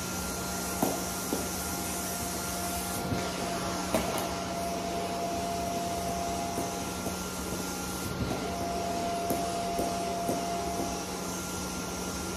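Pet grooming vacuum running with a steady hum and whine, sucking shed fur up its hose from a deshedding brush drawn through a long, thick coat. A few brief knocks sound about a second in and again around four seconds.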